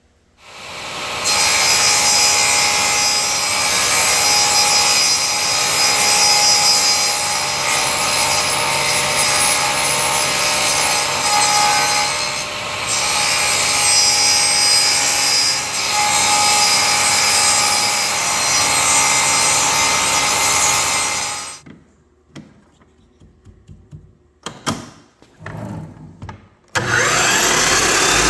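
Power tool cutting a channel into an oak flooring board: a loud, steady run of cutting noise that stops about three-quarters of the way through, a few knocks, then the motor spins up again near the end.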